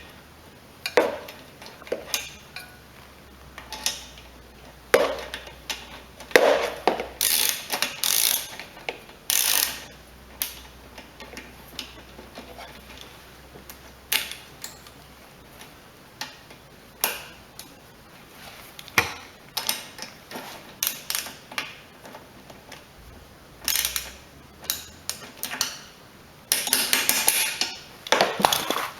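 Irregular clicks and knocks of hand tools and metal parts being worked on a lawnmower engine while a carburetor is fitted, with a denser run of about two seconds near the end.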